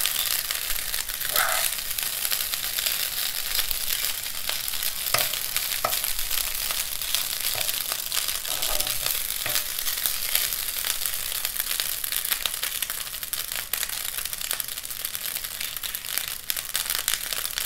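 Kinche with scrambled egg sizzling in a nonstick frying pan: a steady frying hiss, with a few scrapes and knocks of a metal spoon stirring it in the first half.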